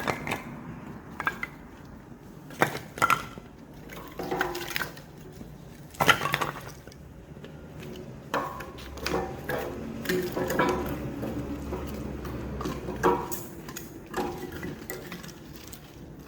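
Hydraulic log splitter driving a cross-shaped blade down through an oak round: sharp cracks of the wood splitting and split pieces clattering down, several times over. A low steady hum of the hydraulic drive runs for a few seconds about halfway through.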